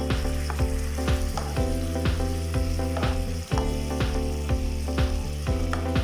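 Background music with a steady beat, over oil sizzling as marinated chicken pieces fry and are stirred in a pan.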